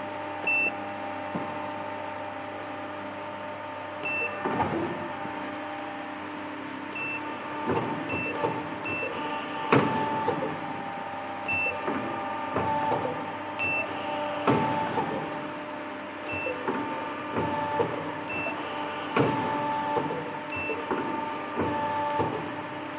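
Telhoo automatic pipe-bending machine worked in manual mode. Short high beeps sound from its control-panel keypad as keys are pressed, and mechanical clunks and brief whirring follow as the clamps and bending head move. Under this runs a steady hum of the machine's running motor, with several tones in it.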